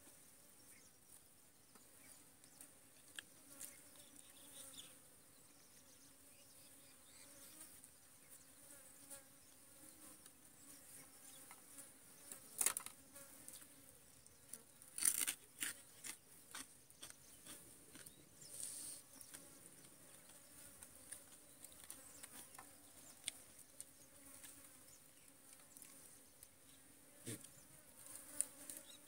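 Faint steady buzzing of flies and other insects, with a thin high insect hiss above it. A few sharp crunches from chewing crisp fried dried fish stand out, loudest about halfway through.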